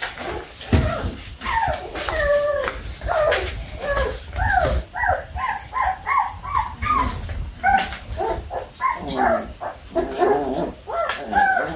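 Very young flat-coated retriever puppies play-fighting and mouthing each other, giving a near-continuous run of short, high whines and yips that rise and fall in pitch.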